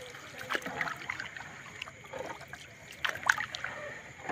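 Water trickling and splattering off a wet fishing net as it is hauled in over a boat's side, with a louder splashy patch about three seconds in.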